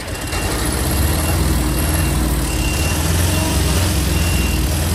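Heavy prime-mover truck engine running under load as it hauls a low-loader trailer carrying a train car, its rumble swelling about half a second in, with a reversing alarm beeping intermittently.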